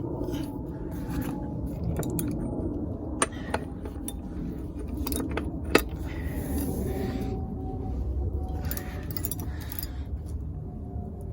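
Metal tools clinking and scraping against the wheel hub while the front axle nut is tightened down, with a few sharp clicks, the loudest about six seconds in, over a steady low rumble.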